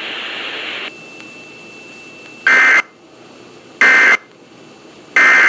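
Three short, identical bursts of Emergency Alert System SAME data tones, a fast two-tone digital warble, about 1.3 s apart: the end-of-message signal that closes an alert. Before them, a hiss that drops away about a second in.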